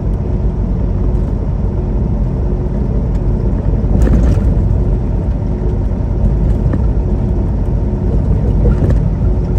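Semi-truck on the road: steady low rumble of engine and road noise, with a brief bump about four seconds in.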